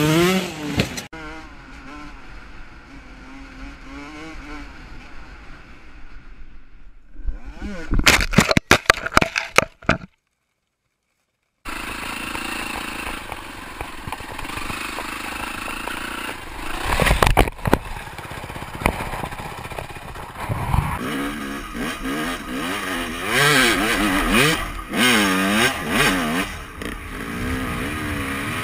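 Dirt bike engines revving and running under throttle, the pitch rising and falling with each twist of the grip, across several short clips. About ten seconds in the sound cuts out for a moment of silence.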